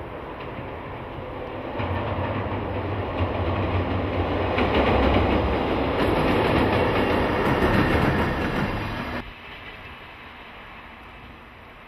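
An electric locomotive hauling the Oya 31 clearance-inspection car passes on the rails, with wheels rolling and clattering over the track and a low steady hum underneath. It grows louder from about two seconds in, then cuts off suddenly about nine seconds in, leaving a fainter steady rumble.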